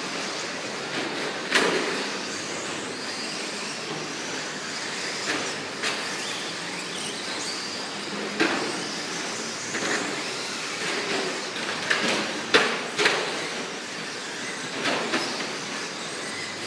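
Radio-controlled short course trucks racing on a dirt track: a steady whir of motors and tyres with faint whines that rise and fall, broken every second or two by sharp knocks and clatters as the trucks hit the ground and the track borders.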